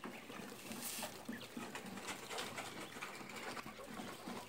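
Japanese quails making faint, soft low calls, with a brief rustle about a second in.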